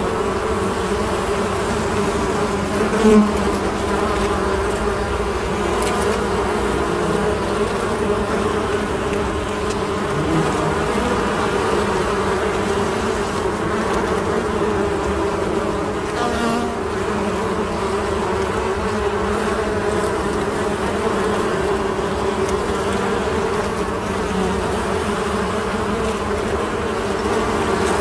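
A swarm of honeybees buzzing steadily in flight around a hive entrance, a dense hum of many wingbeats. A brief louder buzz about three seconds in, as a bee passes close.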